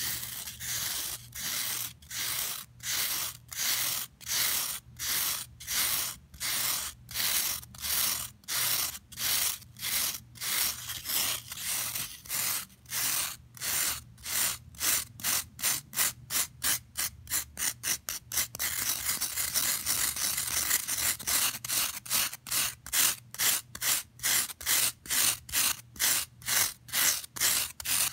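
Long fingernails scratching the surface of a dry green floral foam block: a crisp, rhythmic scratching of short strokes, about two a second at first, quickening about halfway through and running into near-continuous faster scratching in the last third.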